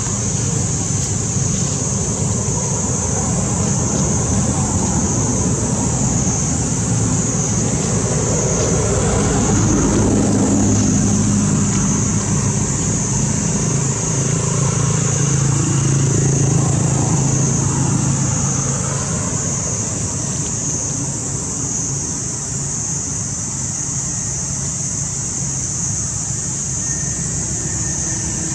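A motor vehicle's engine passing, growing louder around the middle and then fading, over a steady high-pitched hiss.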